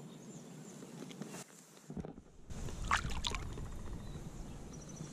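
Water sloshing against the side of a kayak as a fish is released by hand, with a short run of splashes about three seconds in as the fish kicks away.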